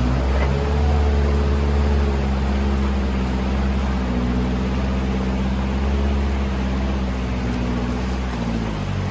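A 4x4 off-road vehicle's engine running steadily, its pitch wavering slightly and dipping near the end.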